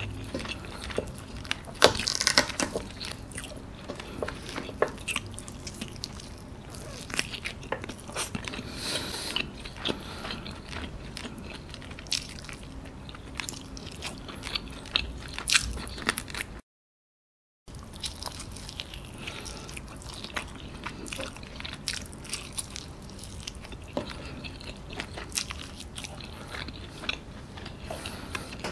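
Close-miked eating of fried chicken: biting and chewing the meat off the bones, with irregular sharp crunches and wet mouth sounds. The sound drops out completely for about a second around two-thirds of the way through.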